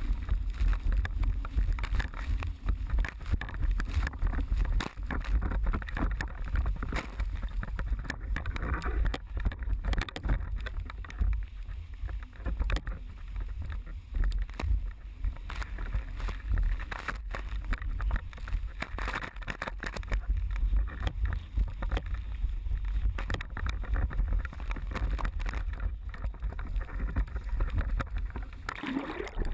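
Wind buffeting the microphone and water rushing and slapping under a slalom sailboard at speed, a continuous rumbling rush that surges and eases as it crosses the chop.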